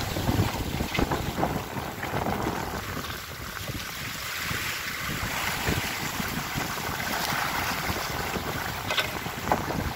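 Water rushing and hissing along the hull and in the foaming wake of a Cal 29 sailboat running fast before a strong following wind, with wind blowing across the microphone in gusts.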